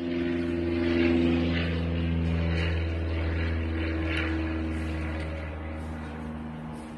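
A steady, low motor drone that grows louder about a second in and slowly fades toward the end.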